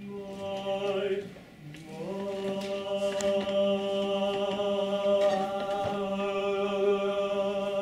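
Barbershop chorus voices singing a short held note, breaking off for a moment, then holding one long steady note.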